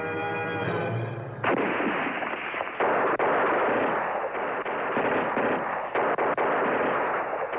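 A held chord of soundtrack music cuts off about a second and a half in. Dense, near-continuous gunfire follows, with many shots running together and a few short breaks.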